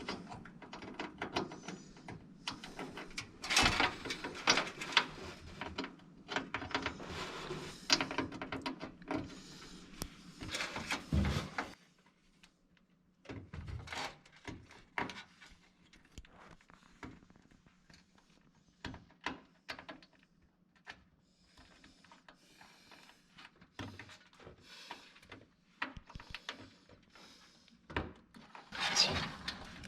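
Hands working inside a desktop PC case, fitting parts and cables: irregular clicks, knocks and rustling of plastic and metal, with a couple of quiet pauses, over a faint steady hum.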